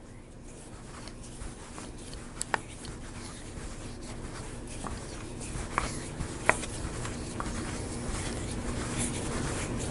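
Quiet scraping of a screwdriver turning a puller screw into the threaded ignition-plate screw hole of a Harley-Davidson Shovelhead cam cover, with a few faint clicks.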